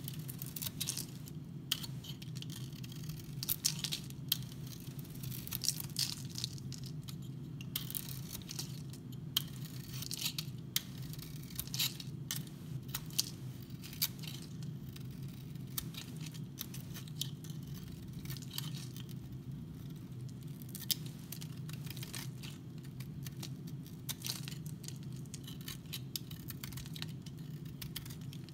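Utility-knife blade carving into a bar of dry, varnish-coated soap, giving irregular crisp scrapes and crackles as shavings break off. A steady low hum runs underneath.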